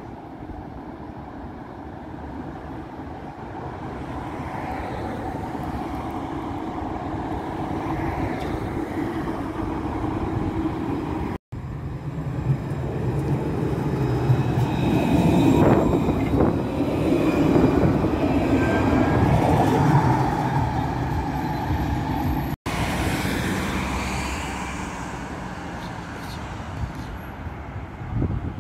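Trams running by, heard in three short clips joined by abrupt cuts. The middle clip is the loudest, a low rumble with a faint rising whine in it.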